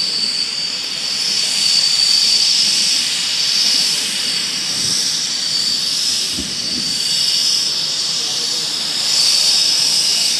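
Panavia Tornado's twin RB199 turbofans at taxi power as the jet rolls slowly past: a steady high-pitched whine over a hissing rush, swelling gently now and then.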